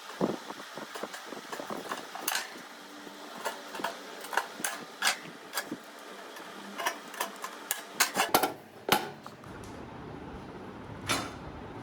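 Irregular clinks and knocks of hard objects being handled, over a steady hiss, with a quick cluster of knocks about eight seconds in.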